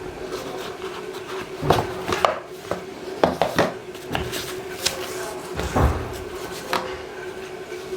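Objects being handled on a work surface: irregular light knocks, taps and rubbing, with a faint steady hum underneath.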